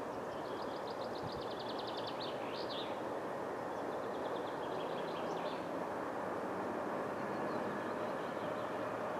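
A distant train approaching along the line, heard as a steady rumble that grows slightly louder. Over it, a songbird sings two rapid trills in the first half, the first ending in a short flourish.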